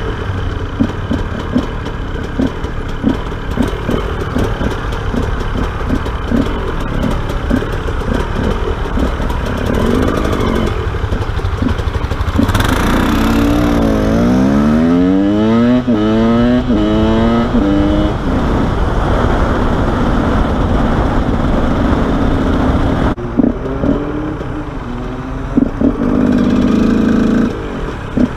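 Two-stroke supermoto motorcycle engine heard close up from the rider's helmet camera while riding in traffic. About halfway through it accelerates hard through several gears, each rise in pitch cut short by an upshift, and then drops back to low, uneven running near the end.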